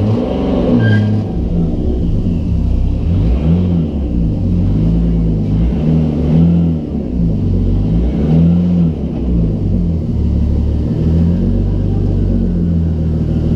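Car engine under way, its pitch rising and falling several times as it is revved through the gears, heard from inside the car.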